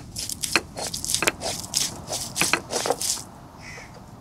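Stone roller striking garlic cloves on a stone grinding slab (ammikallu), crushing them: a quick run of about a dozen sharp stone-on-stone knocks, three to four a second, that stops a little after three seconds.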